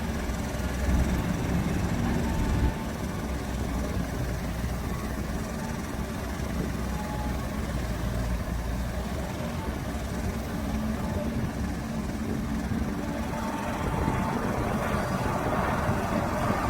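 Dump truck's diesel engine running steadily at a low, even pitch.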